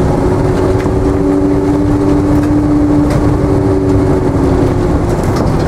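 Routemaster double-decker bus running along, its engine and drivetrain heard from the front seat of the upper deck. A steady humming tone sits over the running noise and fades out near the end.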